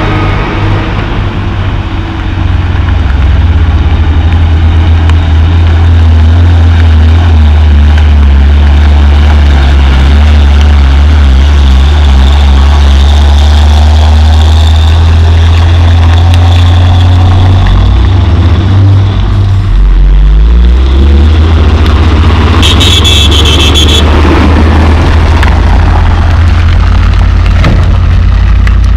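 Diesel engine of a loaded Hino coal dump truck running heavily as it climbs past on a muddy haul road; about twenty seconds in the engine note drops and then climbs again. A brief high-pitched tone sounds a few seconds later.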